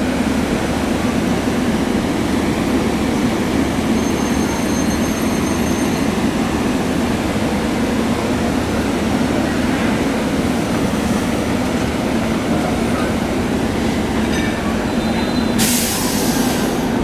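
SEPTA Silverliner IV electric multiple-unit commuter cars rolling past at close range as the train pulls out of the station, a steady loud rumble of wheels and running gear. A thin high squeal rides over it around four to six seconds in, and a sharp burst of hiss lasts about a second near the end.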